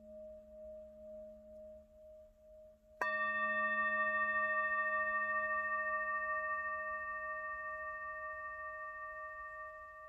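Hand-held singing bowl ringing with a slowly wavering hum, then struck once with its wooden mallet about three seconds in, sounding a bright, layered ring that slowly fades.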